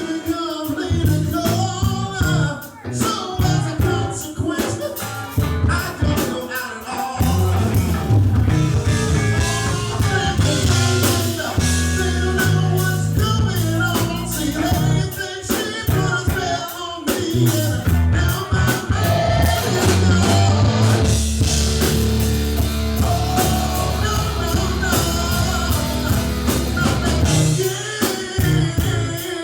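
Rock band playing live: a sung lead vocal over drum kit, bass and electric guitar.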